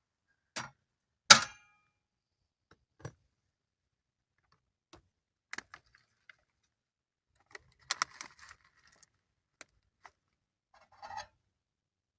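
A few separate sharp clicks and knocks from cooking gear being handled beside a just-boiled pot of water, the loudest about a second in and a short cluster of small rattles later on.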